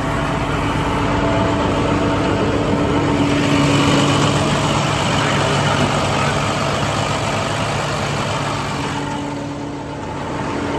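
Diesel engine of a 2012 International bucket truck idling steadily, a little quieter near the end.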